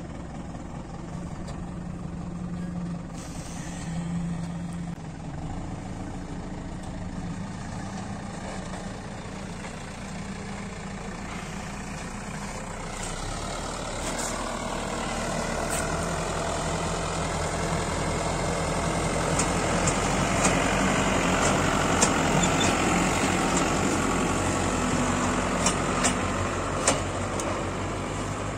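Farm tractor's diesel engine running steadily, getting louder about halfway through, with scattered sharp clicks in the second half.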